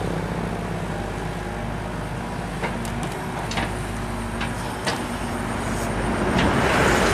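Sumitomo 265 hydraulic excavator's diesel engine running steadily as it dumps soil, with a few short, sharp knocks midway and a louder rush of noise building near the end.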